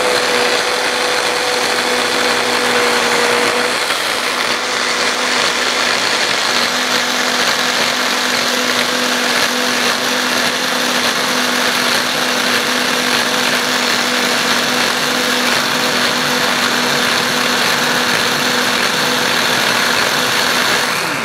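Electric hand blender with its mini chopper bowl attached, running steadily as it blends pesto ingredients. A continuous motor whine that stops at the very end.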